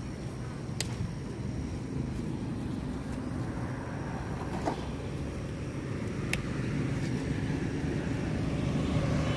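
Steady low outdoor rumble, with two sharp clicks, one about a second in and one about six seconds in.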